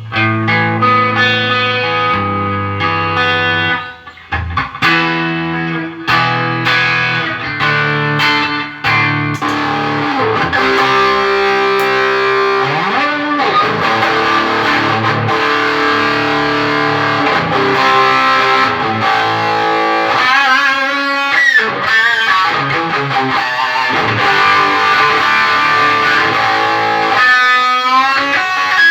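Electric guitar played through a Line 6 POD HD500X multi-effects processor: held chords at first, then busier lead playing with wide string bends and vibrato about twenty seconds in and again near the end.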